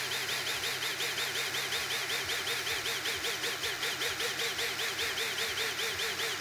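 Worx WU377 20V cordless hammer drill motor whirring, its pitch rising and falling about seven times a second as the trigger is pulsed rapidly, with the motor following each press. It cuts off suddenly at the end.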